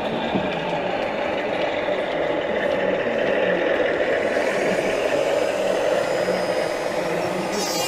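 Model diesel locomotive and its train of open wagons running steadily on the layout track: a continuous running sound of motor and wheels on rail.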